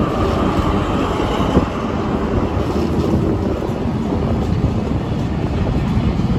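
SNCF BB 75000-class diesel locomotive passing close with a flat wagon behind it: its diesel engine and the wheels on the rails make a loud, steady rumble.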